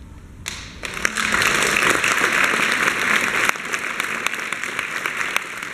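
Audience applause breaks out about half a second in and swells within a second, then carries on steadily with single sharp claps standing out.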